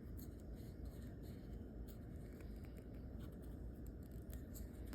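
Faint scratching and rubbing of an alcohol-dipped cotton swab scrubbing the inside walls and connectors of a Puffco Proxy chamber.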